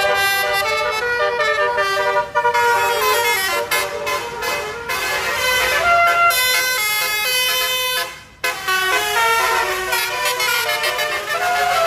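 Indonesian bus 'telolet' multi-tone musical air horn playing a tune in quick stepped notes, breaking off briefly about eight seconds in.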